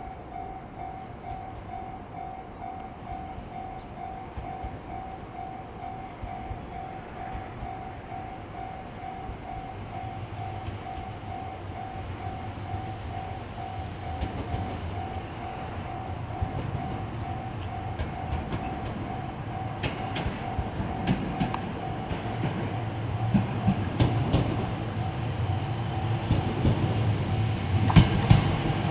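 Level-crossing bell ringing in a steady, evenly repeating tone while an MRT300-series diesel railcar approaches, its engine and running gear growing steadily louder. Clicks of the wheels over rail joints come in over the last third, sharpest near the end.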